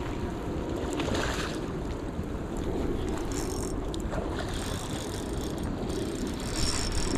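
Steady rush of river water with wind buffeting the microphone, and a few brief louder hisses.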